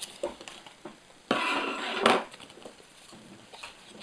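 A paper sticker packet and its stickers rustling in the hands as the freshly cut-open packet is emptied, with one rustle of about a second near the middle and a few light clicks around it.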